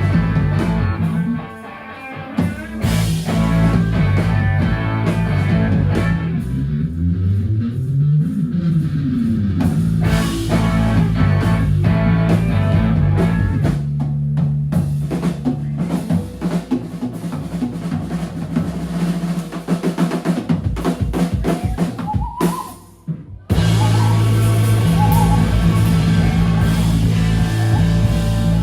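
Rock music with drum kit and electric guitar, briefly dropping out twice before coming back in.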